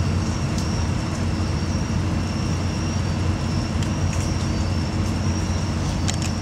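Steady low rumble of outdoor city background noise, like distant traffic, with a faint high whine running over it. A few short sharp clicks come about four seconds in and again near the end.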